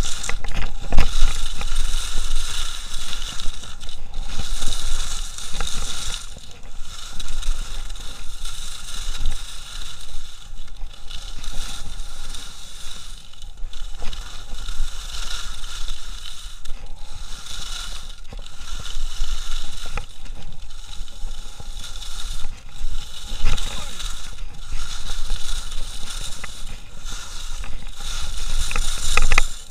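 Skis carving on hard, groomed snow, the edges scraping in turn after turn so the noise swells and drops every one to three seconds, with wind rushing over the camera's microphone at speed.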